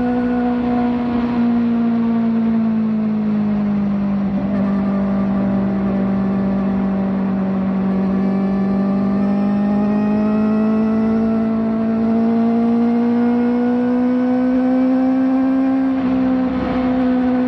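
Kawasaki ZX-4RR's 399 cc inline-four running at high revs through a slip-on exhaust. The steady note sags a little over the first few seconds, then climbs slowly back up, with a brief hitch about sixteen seconds in.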